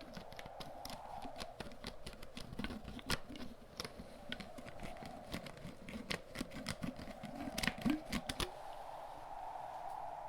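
Quick, irregular fingertip and fingernail tapping on objects close to the microphone, thickening in the middle and stopping about eight seconds in. Under it runs a steady wind sound that slowly swells and fades.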